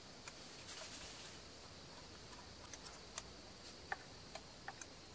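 Faint, scattered clicks and ticks of a small screwdriver working a chainsaw's carburettor adjusting screws, with the engine not running.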